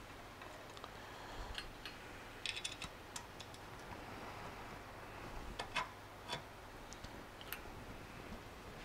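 Light, scattered clicks and taps of small screws and aluminum parts of a Royal 884 vacuum being handled. There is a quick cluster of several clicks about two and a half seconds in.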